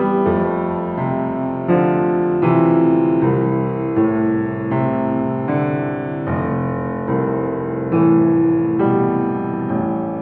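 Piano music: single notes and chords struck one after another, each ringing on into the next.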